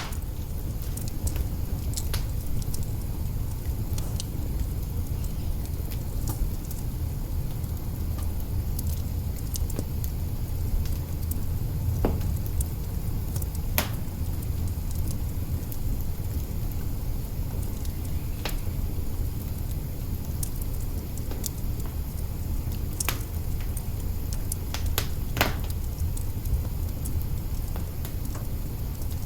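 Log fire burning in an open hearth: a steady low rumble of flames with scattered crackles and a few sharper pops.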